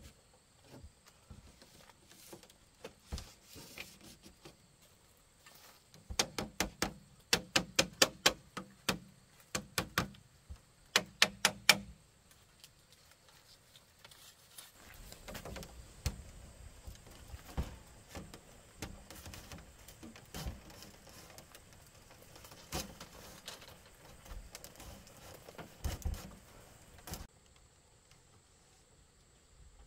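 Bursts of quick, sharp knocks, several a second, from about six to twelve seconds in. Then softer, irregular knocking and rustling that cuts off abruptly near the end.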